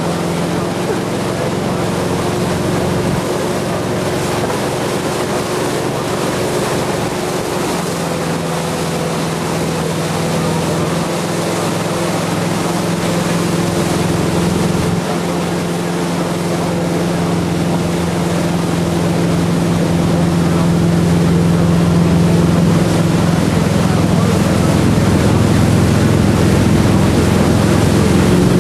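Inboard engine of a Centurion Typhoon wakeboard boat running at steady towing speed, a constant hum over the rush of its wake, growing slightly louder in the second half.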